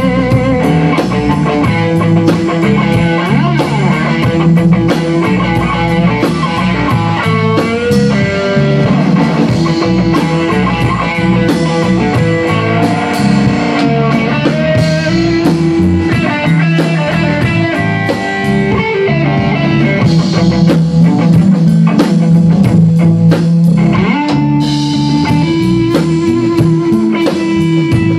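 Rock band playing live: electric guitars with bass and a drum kit, loud and continuous.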